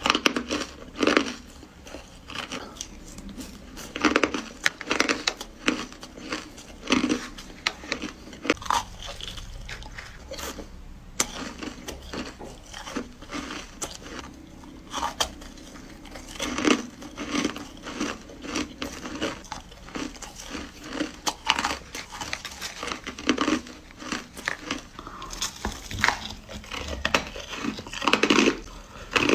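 Hard crushed ice being bitten and crunched between the teeth: irregular sharp crunches, one every second or two, with a short lull about a third of the way in.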